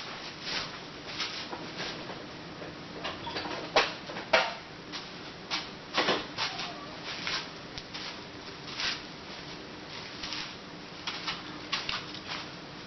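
Tools and small metal engine parts clinking and knocking irregularly during a small engine teardown, some strikes with a short metallic ring.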